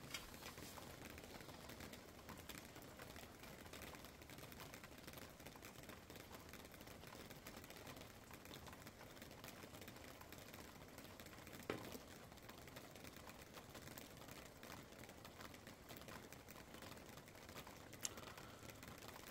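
Near silence: faint room tone with a few small handling clicks, the clearest about twelve seconds in.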